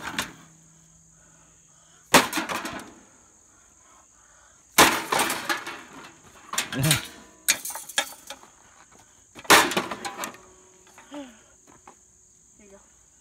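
Sledgehammer blows on the wrecked sheet-metal body of an old charcoal grill: four heavy strikes about two to three seconds apart, each followed by a clatter of loose metal pieces. A steady high insect buzz runs underneath.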